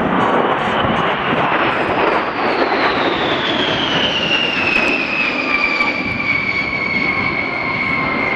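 Boeing B-52H Stratofortress's eight TF33 turbofan engines on a low flypast: a loud jet roar with a high whine that falls steadily in pitch as the bomber passes and draws away.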